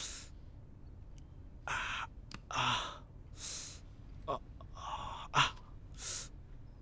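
A man breathing hard in about six strained gasps and exhales as he practises walking on an injured, painful leg, with three sharp taps in between, the loudest about five seconds in.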